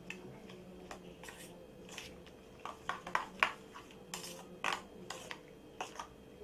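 Scattered light clinks and taps of a utensil against a mixing bowl, coming irregularly and sometimes in quick little clusters.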